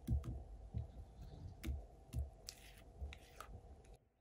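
Thick yogurt soufflé cake batter pouring in a stream into a parchment-lined cake tin, landing in soft, irregular plops, with a few light clicks; it cuts off near the end.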